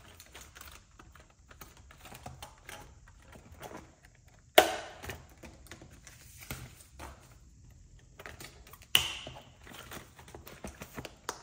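Light rustling and clicking of plastic cash envelopes and paper bills being handled in a ring budget binder, with two sharper, louder clicks, about four and a half and nine seconds in.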